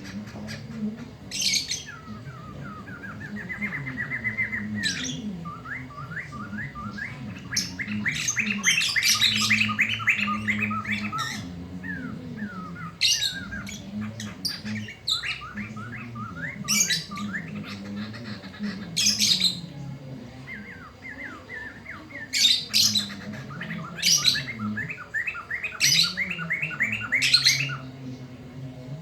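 Poksay mantel, a laughingthrush, singing very loudly: long, rapid rattling trill phrases broken by sharp, high notes, repeated again and again.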